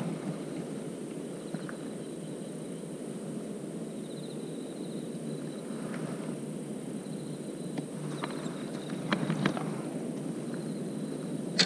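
Outdoor night ambience by the water: insects trill faintly in short stretches over a steady low hiss. A few sharp clicks and knocks come near the end.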